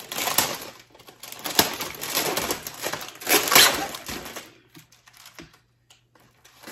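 Plastic Oreo cookie package crinkling and crackling as it is peeled open by hand, loud for about four seconds. It then drops to a few faint crinkles.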